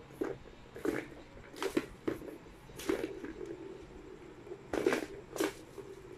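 Short plastic clattering knocks from a cat batting at a three-tier plastic ball-track tower toy, about half a dozen irregularly spaced.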